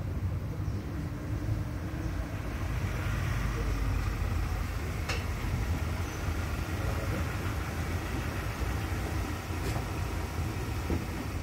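Steady low rumble, with two short clicks about five seconds and nearly ten seconds in.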